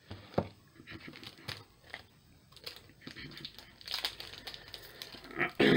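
Crinkling and rustling of a Pokémon card booster pack's foil wrapper being handled and opened, in scattered small clicks that are busiest about four seconds in. A brief word of speech comes right at the end.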